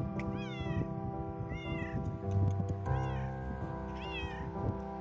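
Adult male tabby cat meowing four times, loudly and insistently, each meow rising then falling in pitch: a hungry cat begging for food. Soft piano music plays underneath.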